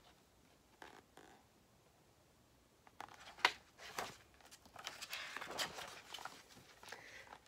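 A picture book's page being turned by hand. After about three seconds of near silence come paper rustling and handling noises, with a couple of sharp clicks about three and a half and four seconds in.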